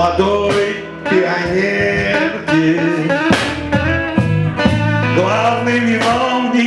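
Live reggae band playing: a steady bass line and drum hits under guitar, with a sung melody over it.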